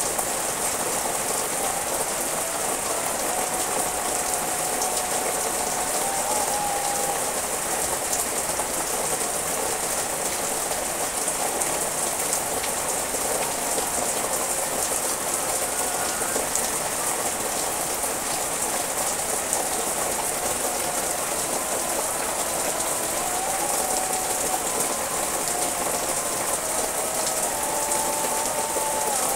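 Steady rain falling on garden trees and leaves: a constant, even hiss.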